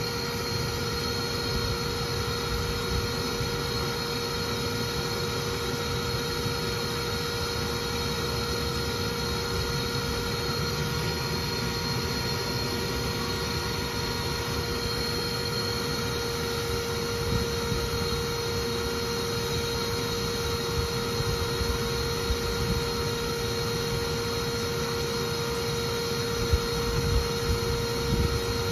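Bee vacuum running steadily, a vacuum motor's constant whine over the rush of air drawn through its corrugated hose as it sucks up bees driven out of an electrical box. Near the end the low end turns uneven and bumpy as the hose is moved around the box.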